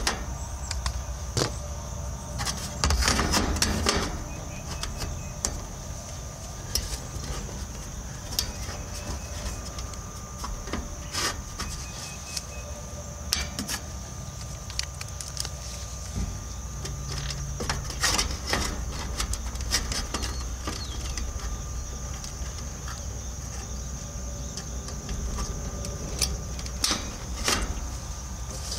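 Scattered clicks and knocks of hand tools and metal parts as a new capacitor is fitted and wired into an AC condenser unit, over a steady high hiss.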